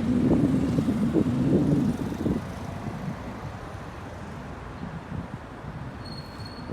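Street background noise, with a low rumble for about the first two seconds that then settles into a steady low hum of traffic.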